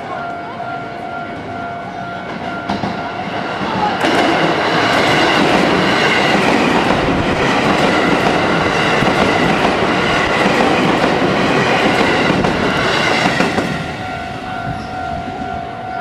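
A Series 281 "Haruka" limited-express electric train passes loudly over a level crossing from about four seconds in until about thirteen and a half seconds. The crossing's warning bell rings steadily before the train arrives and again as it recedes.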